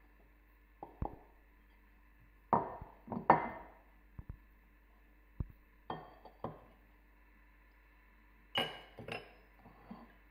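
Small glass and ceramic bowls clinking and knocking as they are handled, emptied and set down: a string of separate short clinks, the loudest about three seconds in and another cluster near the end.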